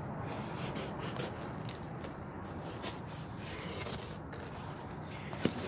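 Sharp knife blade slicing and scraping along packing tape on a cardboard box, a soft rubbing, scratchy sound, with a sharp click near the end.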